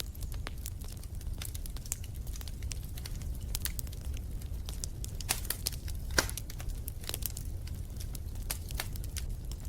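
Wood fire crackling in a fireplace: irregular sharp pops and snaps over a steady low rumble, with one louder pop about six seconds in.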